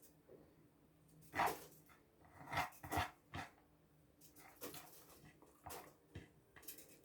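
A dog barking in four short, faint barks in the first half, with a few softer sounds after.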